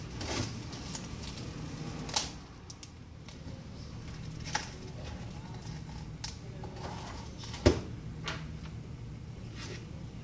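Scattered light clicks and taps of small tools and parts being handled while working on an iPad 3 during a glass replacement, the sharpest about three-quarters of the way through, over a steady low hum.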